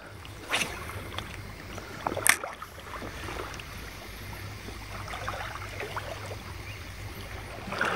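Small waves lapping at a stony lake shore, with a steady low wind rumble on the microphone. Two sharp clicks stand out, about half a second and two seconds in.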